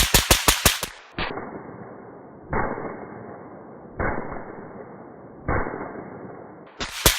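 CZ Scorpion Evo 9mm carbine with a suppressor firing a fast string of about eight shots, roughly six a second. Then four single muffled bangs about a second and a half apart, each trailing off, and a quick pair of sharp shots near the end.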